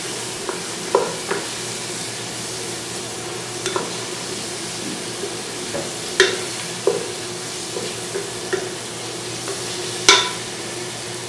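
Sliced onions and cashews sizzling in oil in a nonstick pot, stirred with a wooden spoon, with scattered knocks and scrapes of the spoon against the pan. The loudest knock comes near the end.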